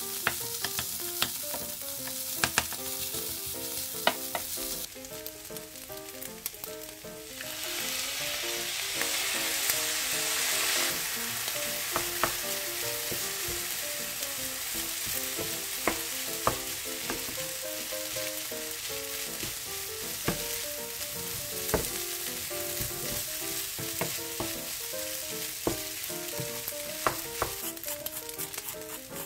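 Egg fried rice sizzling in a hot nonstick frying pan while it is stirred and tossed with a wooden spatula, the spatula clicking against the pan now and then. The sizzle drops briefly about five seconds in, then comes back louder.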